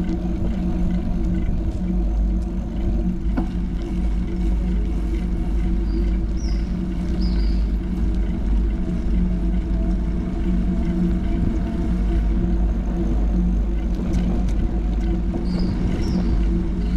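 Steady low mechanical hum of outdoor street ambience over a deep rumble, typical of an idling vehicle engine nearby. Two pairs of short high chirps come through, about six and fifteen seconds in.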